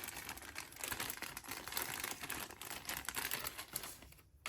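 Crinkling and rustling of plastic packaging with a rapid patter of small clicks as parts are handled, stopping about four seconds in.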